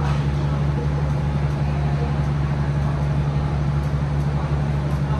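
Steady low engine drone from a standing diesel-hauled passenger train, holding one even pitch without revving or change.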